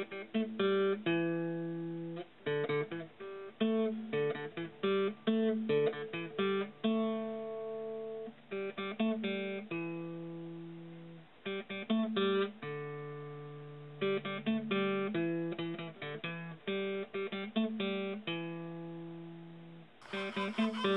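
Acoustic guitar music: single plucked notes in a picked melody, each note ringing and fading before the next.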